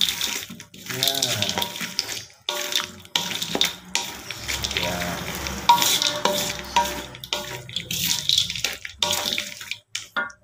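Wooden spatula stirring fried anchovies and peanuts through thick chilli sambal in a wok, with wet mixing and scraping sounds. It comes in several stretches broken by brief silences.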